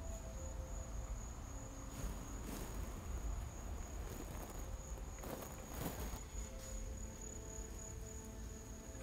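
An insect calling with one steady, unbroken high-pitched trill, with two brief rustles in dry leaves about two seconds in and again near six seconds.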